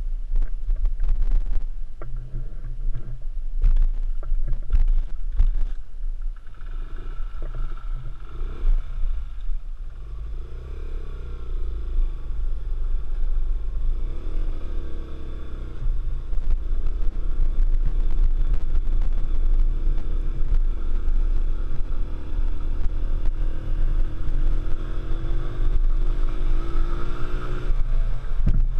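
Off-road motorcycle engine under way with heavy low rumble, its pitch rising and falling repeatedly with the throttle and climbing steadily near the end as the bike speeds up. Knocks and rattles come in the first few seconds.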